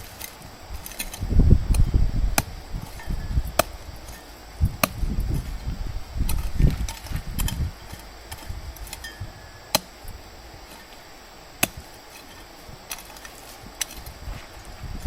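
Irregularly spaced sharp knocks, about half a dozen, over low dull thuds that ease off after the first half.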